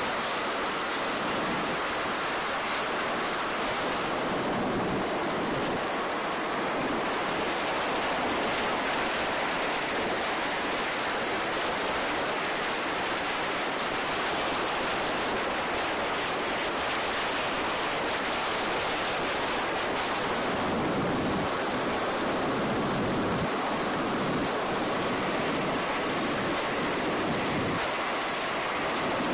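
MV-22 Osprey tiltrotor running on deck with its proprotors turning, heard as a steady, even rushing noise with little low rumble.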